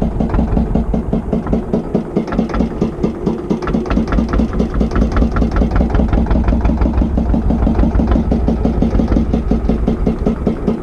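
Small motorboat's engine running steadily with an even chugging beat, about five or six thumps a second.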